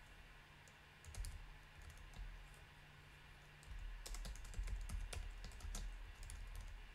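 Typing on a computer keyboard: a few scattered keystroke clicks, then a denser run of keystrokes in the second half.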